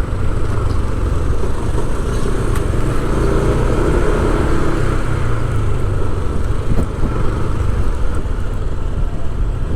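Steady engine and road noise of a motor vehicle being driven along a street, heard from on board.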